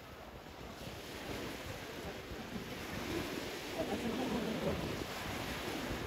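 Small waves breaking and washing up onto the sand at the shoreline, swelling louder around the middle, with wind buffeting the microphone.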